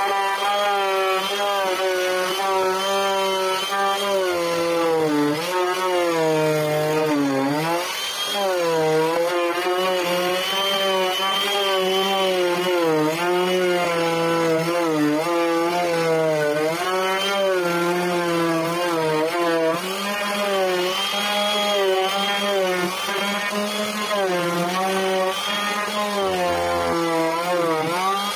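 Handheld electric carving tool cutting a decorative pattern into a wooden panel. It gives a continuous high motor whine with a grinding cut, and the pitch dips briefly several times, most deeply about a quarter of the way through.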